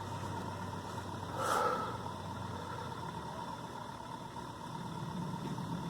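Hampton Bay Huntington III ceiling fan motor running without blades, a steady low hum with a faint whine. A brief soft rushing noise about a second and a half in.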